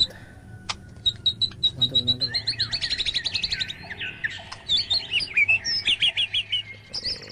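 A songbird singing: a run of high, repeated chirps that speeds up into a fast trill, then varied warbling phrases.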